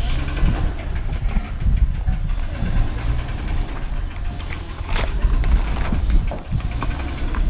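Off-road 4x4's engine running at low revs as it crawls over rocks, a steady low rumble, with one sharp click about five seconds in.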